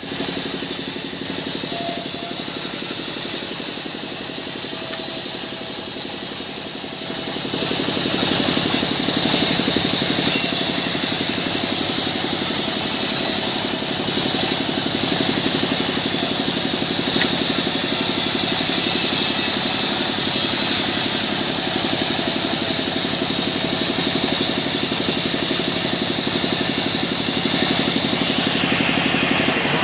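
Engine-driven sawmill saw running steadily; about seven seconds in it grows louder and harsher with a hissing edge as the blade cuts into a small mahogany log.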